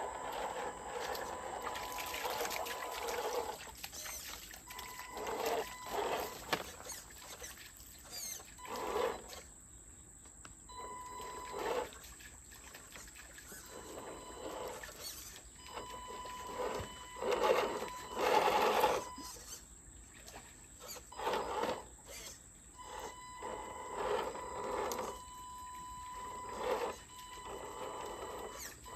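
Scale RC pickup truck's electric motor and gears whining in repeated short bursts of throttle as it crawls over rocks in shallow water. The bursts are louder about two-thirds of the way through.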